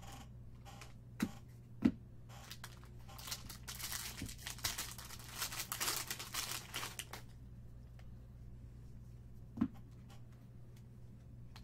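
Foil wrapper of a Bowman baseball card pack being torn open and crinkled by hand: a run of crackling about four seconds long in the middle, with a few light sharp taps before and after.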